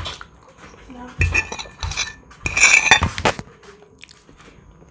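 Metal fork scraping and clinking against a plate while scooping mashed potato, in two short bouts about a second in and about two and a half seconds in.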